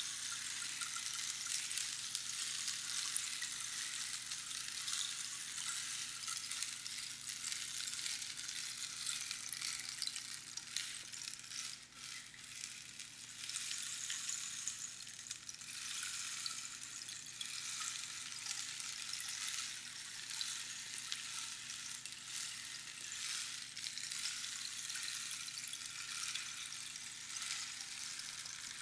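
Rainstick being tipped, its pebbles or beans trickling down past the pins inside the hollow cactus tube in a steady pattering rush like falling rain. The rush swells and eases, with a brief lull about twelve seconds in.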